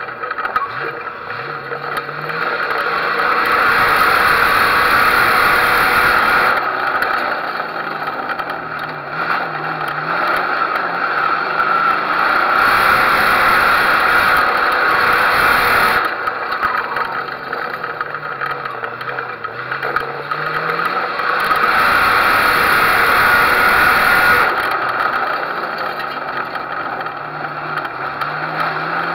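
Figure-8 race car engine running and revving up and down, heard from the hood with its open air cleaner beside the microphone. Three times, a loud rush of wind and engine noise swells for a few seconds and then drops back.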